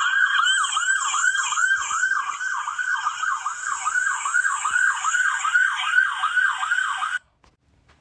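Police car siren in its fast yelp mode: a rapid rising-and-falling wail at about three sweeps a second, cutting off suddenly about seven seconds in.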